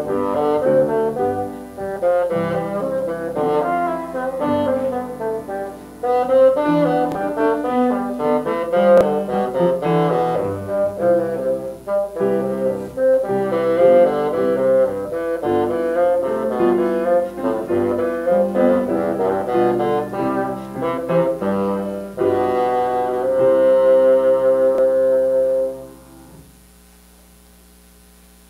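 Bassoon playing a quick passage of many short notes, closing on a long held note near the end.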